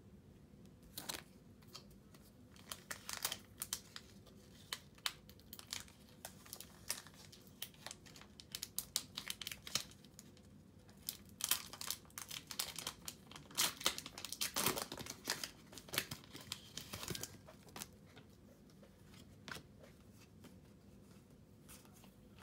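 Packaging being crinkled and torn open by hand: irregular crackles and rustles, densest in the middle and thinning out to a few scattered crackles near the end.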